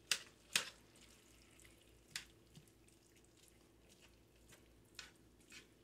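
Metal spatula scraping and clinking against a cast-iron skillet as browned ground beef with onions and peppers is turned: about five short, sharp strokes spread over several seconds, two of them in the first second.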